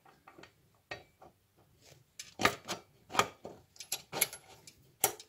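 Steel front wheel axle of a moped being pushed and twisted through the fork leg and wheel hub: scattered metal clicks, clinks and light scrapes. The loudest are about two and a half, three and four seconds in, and just before the end.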